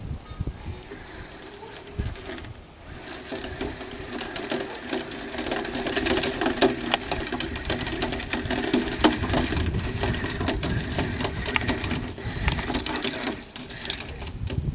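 Small electric motor and gearbox of a toy RC car whirring, with many small clicks and crunches of gravel under its wheels. It starts about three seconds in, grows louder, and stops shortly before the end.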